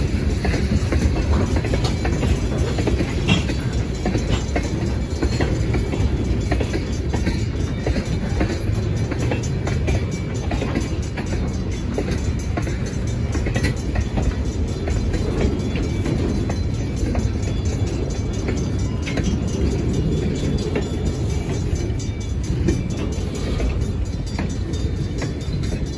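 Freight train of tank cars and boxcars rolling past at a grade crossing: a steady rumble with scattered clicks and knocks from the passing cars.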